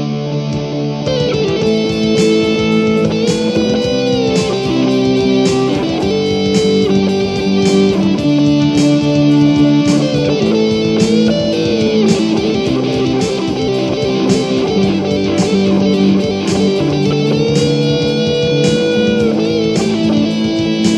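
Background music: an electric guitar instrumental over a steady drum beat.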